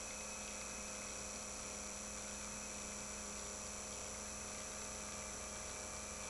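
Small motor of a rotating display turntable running, a steady electrical hum with a faint hiss and no change in pitch or level.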